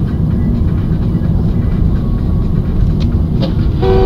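Dashcam recording inside a moving car: a steady low rumble of engine and road noise. There are a couple of faint knocks about three seconds in, and a two-tone car horn sounds briefly near the end.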